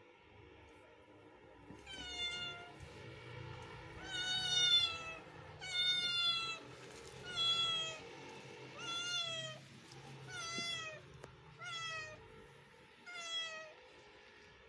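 Kitten meowing repeatedly: about eight high-pitched meows, roughly one every second and a half, each sliding down in pitch at the end.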